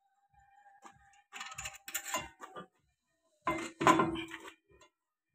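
Metal clinks and clanks of a tractor clutch pressure-plate assembly and steel tools being handled while the clutch is fitted on the flywheel. They come in two bursts of sharp knocks with a short ring, the louder about three and a half seconds in.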